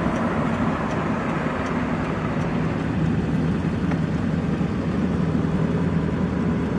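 Steady road and engine noise heard inside a moving vehicle's cabin, an even low rumble.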